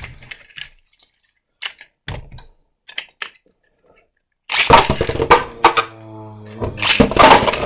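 Small plastic clicks as the Beyblades are readied on their launchers, then about four and a half seconds in a custom 3D-printed Beyblade and a Super Hyperion are launched into a plastic stadium: loud clattering and scraping as the spinning tops collide, a brief steady hum of a top spinning, then another burst of clashing near the end.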